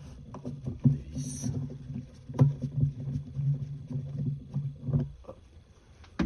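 Rubber air-intake hose being twisted and worked on its fitting after its hose clamp is loosened, giving a low stop-start creaking groan with small clicks from the clamp and tool. A sharp click comes at the very end.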